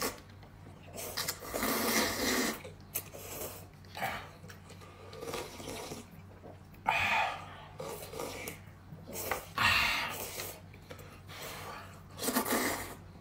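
A person eating noisily, with several loud slurps of about a second each, spaced a few seconds apart.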